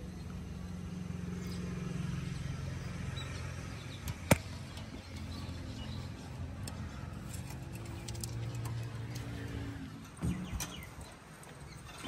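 A low, steady engine hum that shifts in pitch near the end, with one sharp metallic click about four seconds in and a couple of knocks shortly before the end.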